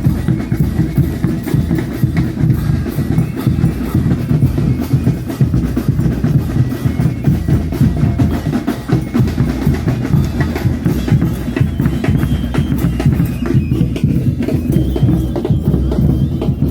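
Bombos (large bass drums) and platillos (hand cymbals) of a Chilean religious dance band, beating a fast, unbroken rhythm.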